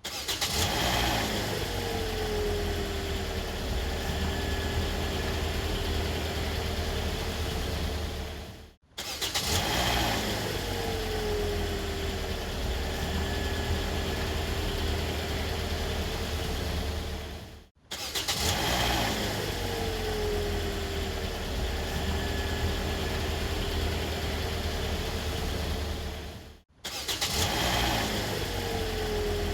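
Car engine starting, its revs flaring and then falling back into a steady idle that fades out after about eight seconds. The same start-up plays again three more times, the last one just beginning near the end.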